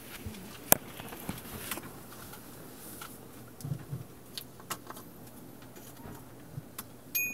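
Handling noise from a phone being set down, with scattered clicks and knocks, one sharp click about a second in, over a low steady hum. Near the end a clear, steady high ringing tone begins.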